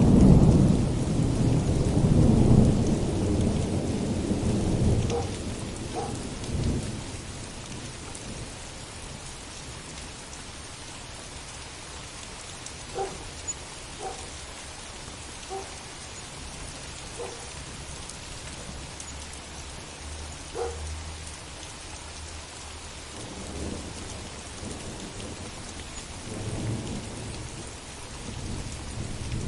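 Heavy rain falling steadily while a loud thunderclap rolls into a low rumble that fades over the first several seconds. A few short, faint barks from a dog come through the rain in the middle, and softer thunder rumbles again near the end.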